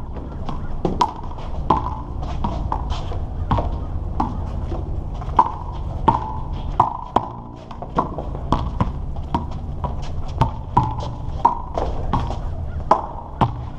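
A rubber handball smacking repeatedly against a concrete wall and court during a rally: a string of sharp pops at irregular intervals, about one or two a second, each with a short ring.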